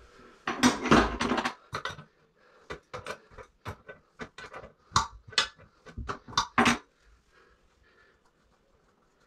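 A quick run of sharp clinks and knocks from hands and tools working at a toilet being taken out, loudest near the start and stopping about seven seconds in.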